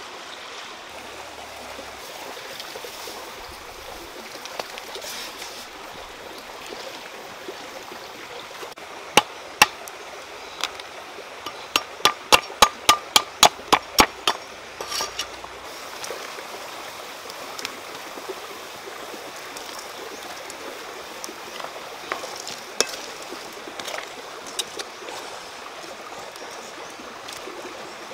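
Cleaver chopping on a round wooden chopping block: a few single blows, then a quick run of about nine chops in two seconds, with a few lighter knocks later. Underneath is a steady rush of flowing water.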